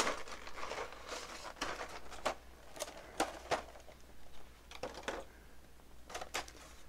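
Clear plastic blister tray being handled and popped apart: crinkling plastic with a series of separate sharp clicks and snaps.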